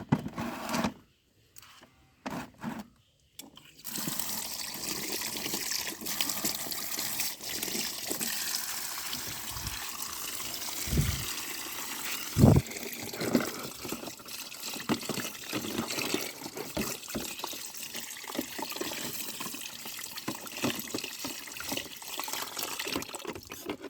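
Running water pouring and splashing as muddy plastic toy guns are washed, starting up about four seconds in and running steadily, with a couple of low thumps around the middle.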